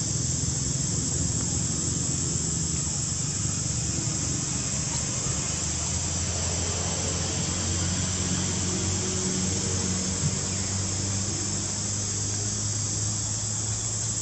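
Insects droning steadily in a high, unbroken buzz, over a low steady hum.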